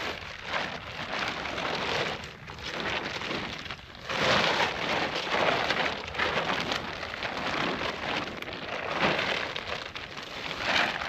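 Plastic tarp and tent fabric rustling and crinkling in uneven waves as they are spread out and handled while the tent is set up, loudest a few seconds in and again near the end.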